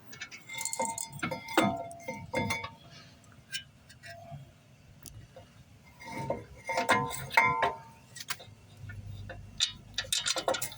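Light metallic clinks and ticks of brake parts and hand tools being handled while the caliper bracket is refitted, in two clusters, one about a second in and another around six to eight seconds in.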